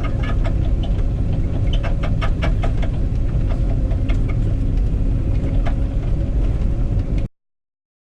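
Cat 314E excavator's diesel engine running steadily under work, with a run of sharp clicks and knocks over it. The sound cuts off suddenly about seven seconds in.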